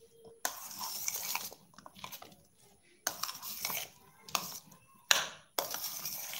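A spoon stirring and scraping through an oil-dressed chopped salad in a stainless steel bowl: wet mixing with light metal scrapes and clinks, in several separate bursts.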